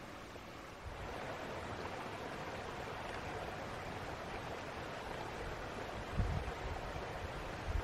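Steady rushing of running water, getting a little louder about a second in, with a couple of low bumps near the end.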